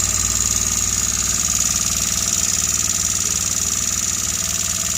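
Royal Enfield Continental GT 650's parallel-twin engine idling steadily, with the abnormal noise at idle that the bike is being checked for.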